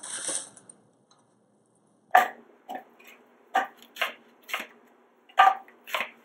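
Kitchen knife chopping a yellow onion on a cutting board: about seven sharp, irregular strokes, starting about two seconds in.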